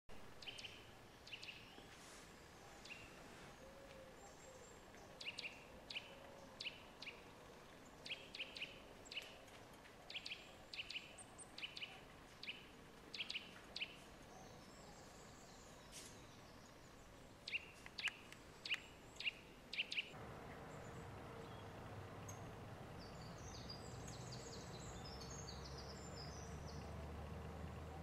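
A small bird giving sharp, dry clicking calls in quick irregular runs, like someone typing on a manual typewriter. The clicks stop about twenty seconds in, when a steady low hum comes in under faint high twittering.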